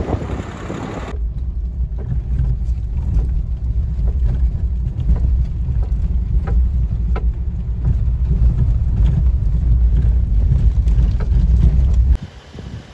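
A vehicle driving: a steady low rumble with faint scattered small knocks and rattles. It begins after a second of wind-like noise and cuts off abruptly near the end.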